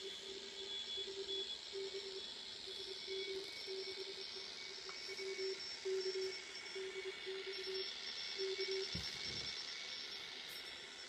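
Morse code being received on a vintage valve communications receiver: a steady low-pitched tone keyed in dots and dashes over background receiver hiss, stopping about eight and a half seconds in. A low thump follows just after.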